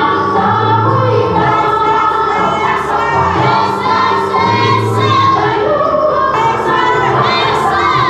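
Dance music with a group of voices singing together, choir-like, over low notes that recur beneath them.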